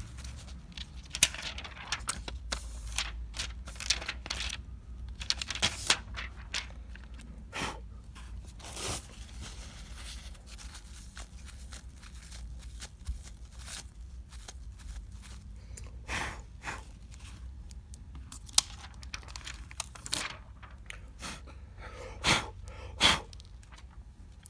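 Adhesive tape being peeled off a replacement iPad mini 2 digitizer: short, irregular tearing and peeling sounds mixed with small clicks and scrapes from handling the parts, over a faint steady low hum.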